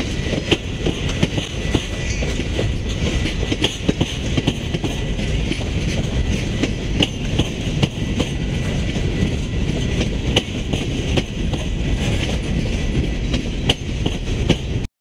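Long freight train of covered hoppers and tank cars rolling past: a steady rumble of steel wheels on the rails, with frequent irregular clicks and clanks.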